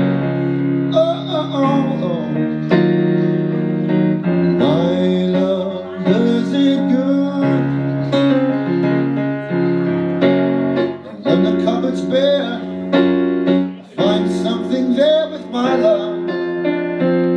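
Electronic keyboard in a piano voice playing held chords that change every second or two, with a man singing wordless, sliding vocal runs over them at times.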